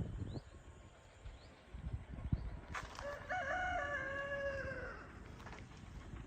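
A rooster crows once: a single call of about two seconds, starting about three seconds in.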